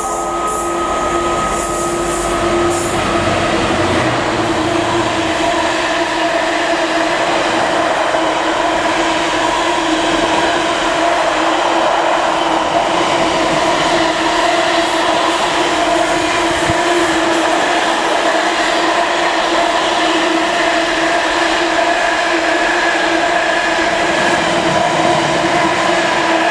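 Freightliner Class 66 diesel locomotive passing through at speed with a long intermodal container train. A heavy engine rumble in the first few seconds gives way to the container wagons rolling past, with a steady whine held throughout.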